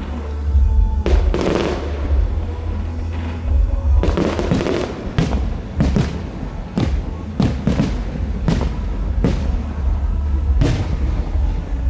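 Fireworks going off: a dozen or so sharp bangs at irregular intervals over a steady low rumble.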